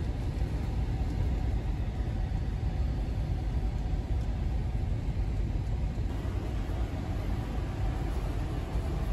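Steady low rumble of a large car ferry under way, heard from inside the ship: the drone of its engines and hull, running evenly with no rise or fall.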